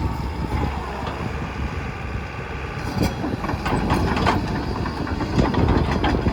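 JCB JS145LC tracked excavator running, its diesel engine rumbling steadily. Metallic clanks and knocks come in a cluster about halfway through and again near the end.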